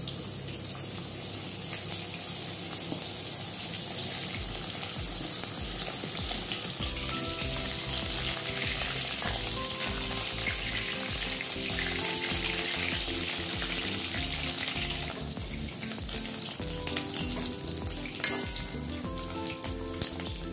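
Steamed cauliflower florets sizzling in hot oil in a metal kadai, with a few clicks and scrapes of a perforated metal spatula against the pan as they are turned. Background music with a steady beat comes in about seven seconds in.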